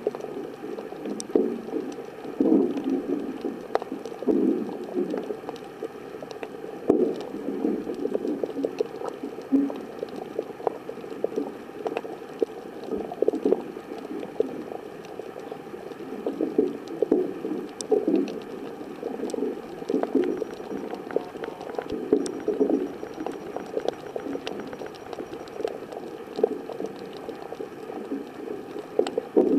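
Muffled underwater gurgling and sloshing of water around a submerged Olympus Tough TG-810 waterproof camera, coming in uneven swells with a few faint clicks.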